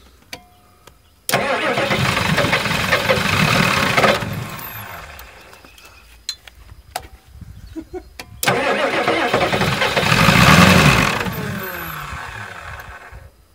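Long-dormant 1985 Ford 6.9 IDI V8 diesel cranked by the starter twice, each try about three seconds long, the sound trailing off after each without the engine running on. A few light clicks come between the tries.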